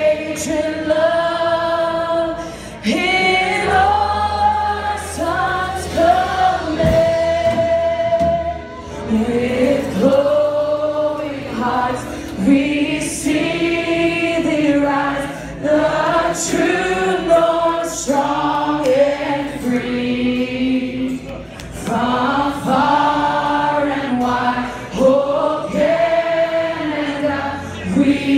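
A congregation singing a worship song together with a live band, many voices in sung phrases.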